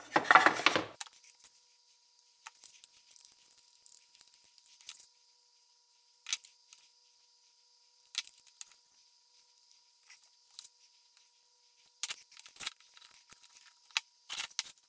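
Quiet handling sounds as two basswood handle halves are glued together on a steel workbench: scattered light taps and clicks of wood and a glue stick. A denser run of clicks near the end comes as a bar clamp is slid on and tightened.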